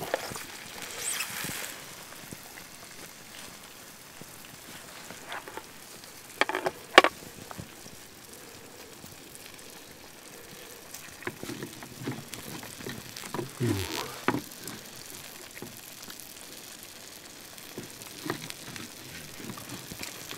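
Trout sizzling gently in a pan of hot oil. Over the sizzle come a few sharp clinks and scrapes of a metal spatula and fork against the pan as the fish is lifted and pulled apart, the loudest about seven seconds in.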